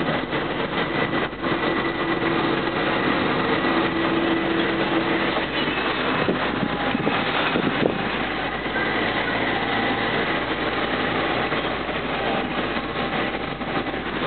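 Car engine running with road noise, heard from inside the cabin of a car driving slowly; a steady, even noise.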